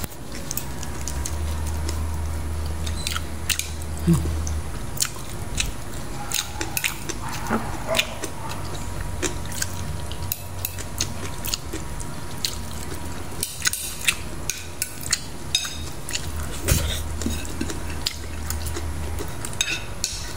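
A person eating rice and fried fish with their fingers close to the microphone: chewing and mouth sounds with many small scattered clicks against a plate, over a low hum that comes and goes.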